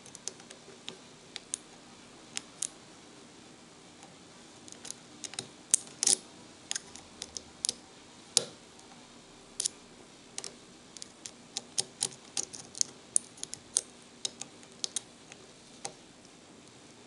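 Lock pick working the pins of a Russian CTD padlock: irregular sharp metallic clicks and ticks, sparse at first and much thicker from about five seconds in.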